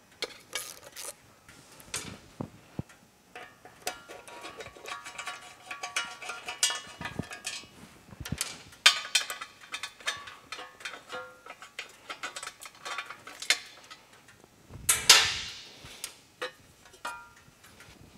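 Allen wrench and loose 5 mm bolts working on a chrome engine side cover: scattered metallic clicks, clinks and ringing taps. A louder scraping rush about fifteen seconds in as the cover comes off.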